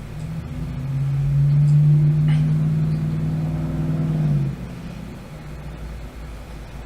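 A motor vehicle's engine droning at a steady low pitch, growing louder for about two seconds and then stopping abruptly about four and a half seconds in.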